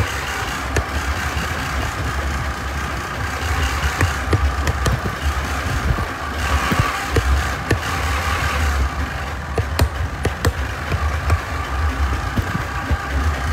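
Tractor engine running steadily, with frequent short knocks and rattles. A hiss rises for about two seconds near the middle.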